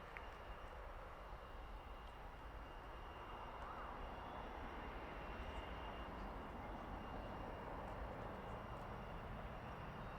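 Faint, steady noise of a distant jet aircraft, with a thin high tone running through it.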